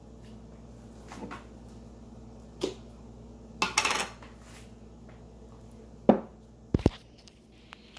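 Kitchen handling clatter: a few separate knocks and a short rattling clatter of pots, jars and utensils being moved on the stove and counter. The loudest knock comes about six seconds in, followed by two quick sharp taps, all over a low steady hum.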